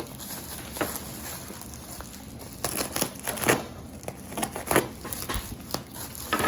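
Packing material in a shipping box crinkling and rustling in irregular handfuls as it is handled and pulled aside, louder in a few bursts around the middle.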